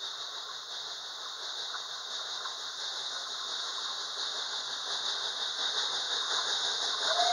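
Steady high hiss from the rails, growing slowly louder as a steam train approaches along the track.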